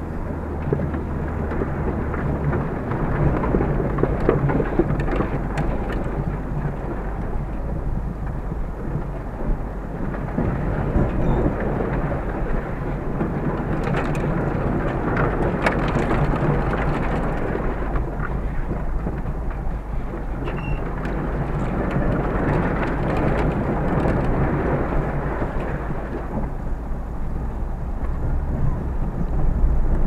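Tall dry grass and weeds rushing and scraping against the body of a Škoda Felicia as it pushes through them, heard from inside the cabin over the low drone of the engine. The rushing swells and fades several times, with sharp ticks of stems striking the car around the middle.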